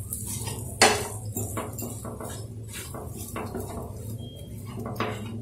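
Metal spoon stirring a thick egg-and-potato mixture in a non-stick frying pan, with repeated scrapes and clinks against the pan and a sharper knock about a second in. A steady low hum runs underneath.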